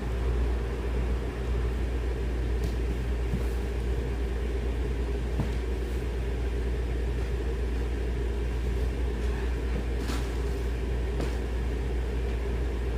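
A steady low mechanical hum, with a few faint light knocks scattered through it.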